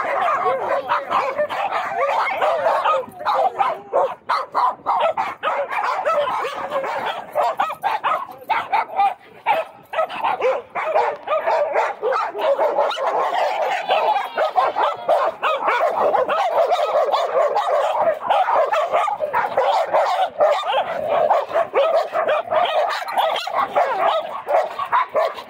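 Several dogs, huskies among them, howling and barking together, loud and without a break.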